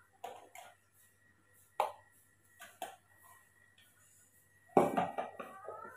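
Metal spoon clinking and knocking against a plastic milk-powder container and cups, in several separate clinks with a quicker cluster near the end.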